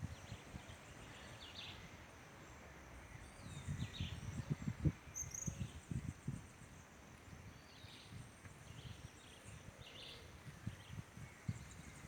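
Birds chirping in short, scattered calls over a steady high insect hum. Irregular low rumbling knocks, from wind or handling on the microphone, are the loudest thing heard, strongest a few seconds in.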